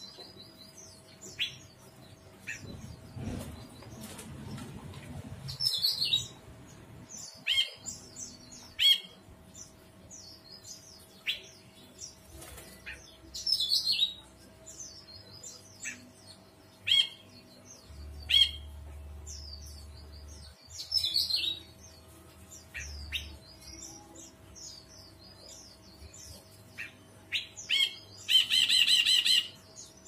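Caged brinji kelabu bulbul calling: a string of short, sharp chirping notes repeated every second or so, with a louder, harsh rattling call near the end.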